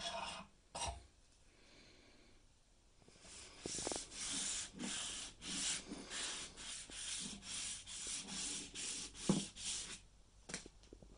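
Sandpaper rubbed back and forth along a wooden hammer handle to take off its varnish, even strokes about two or three a second starting a few seconds in and stopping near the end. A scrape or two from a curved blade drawn along the handle comes just at the start.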